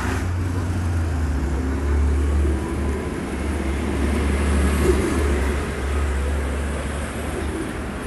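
Street traffic noise: a steady low rumble with vehicles passing, swelling about two seconds in and again about five seconds in.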